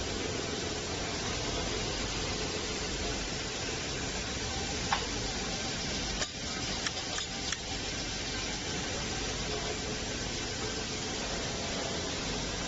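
Polishing machine sanding a pressure cooker body, a steady abrasive hiss at an even level, with a few sharp clicks in the middle.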